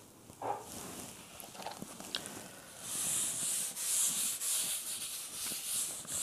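Chalkboard duster wiping chalk off a green chalkboard, a scratchy rubbing hiss in repeated back-and-forth strokes that starts about three seconds in.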